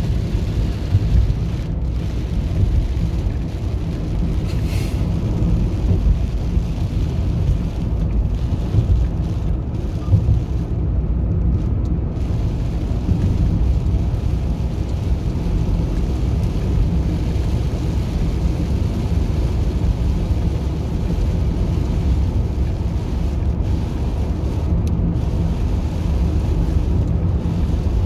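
A car driving on a wet road in the rain, heard from inside the cabin: a steady low rumble of engine and tyres, with the hiss of rain on the car.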